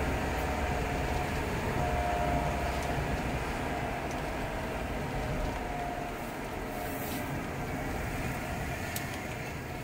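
Cabin sound of a 1979 Ford Granada 3.0 automatic on the move: its 3.0-litre Essex V6 running with steady tyre and road rumble and a faint whine over it, the level easing slowly.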